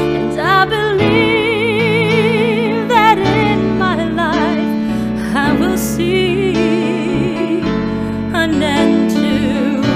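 A woman singing a slow ballad, with wide vibrato on her held notes, over a steady instrumental backing track.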